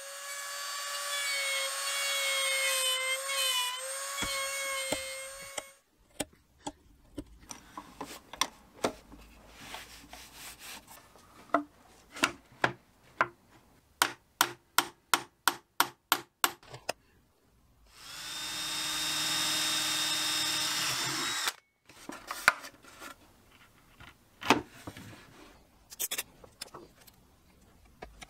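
Handheld power tool whining steadily on birch plywood for about six seconds. It is followed by scattered clicks and a quick run of even light taps, a second power-tool run of about three seconds, and a few more knocks from hand work on the wood.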